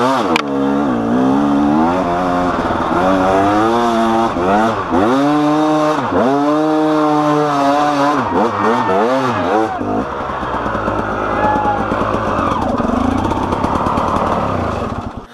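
KTM EXC two-stroke enduro bike's engine revving hard and dropping back over and over as it pulls up a steep dirt hill climb, its pitch rising and falling about once a second. After about ten seconds it runs lower and steadier.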